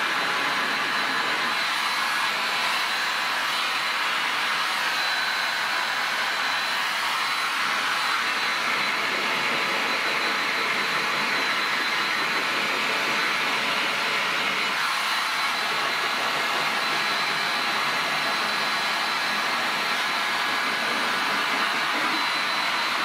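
Hand-held electric heat gun running steadily, an even rush of blown air with a thin high whine over it.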